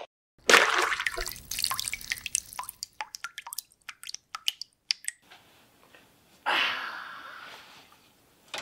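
Liquid splashing, then a run of separate drips, then a second splash that fades away.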